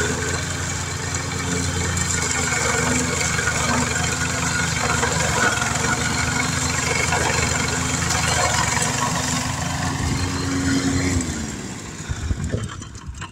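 PowerSmart gas push mower with a horizontal-shaft engine running steadily under load as it cuts tall weeds. About eleven seconds in, the engine is shut off and winds down, its pitch falling until it stops.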